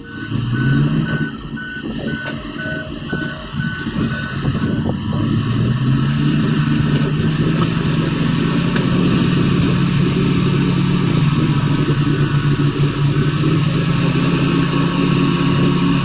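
Heavy diesel engines working under load as a crawler bulldozer pushes an articulated dump truck stuck in mud. The engine note rises about five seconds in and then holds steady. A back-up alarm beeps about twice a second for the first five seconds, then stops.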